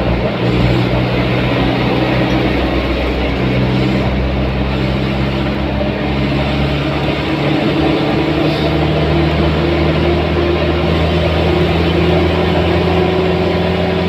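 Engine drone and road noise heard from inside a vehicle cruising on an expressway: a steady hum of low tones over tyre and wind noise, stepping in pitch a few seconds in and climbing gently later on.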